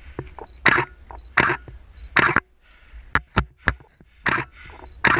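A climber's heavy breathing close to the microphone: hard, noisy exhalations about every three-quarters of a second from exertion on the climb. A few sharp knocks fall in a quick cluster in the middle.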